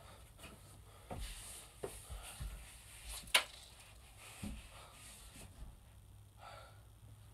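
Faint scuffs and light knocks of a person bracing hands and body against a wooden closet door frame, with one sharp click about three and a half seconds in.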